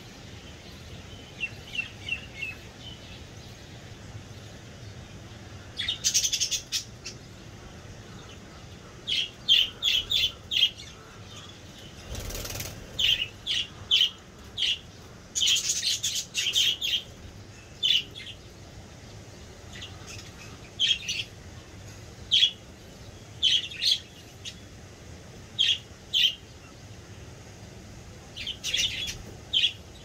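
Budgerigars chirping in short, high bursts, some single and some in quick clusters of several, scattered through with busier stretches in the middle.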